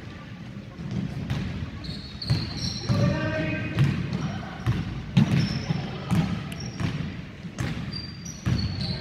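Basketball bouncing on a wooden gym floor in a run of sharp, irregular thuds, with sneakers squeaking briefly on the boards.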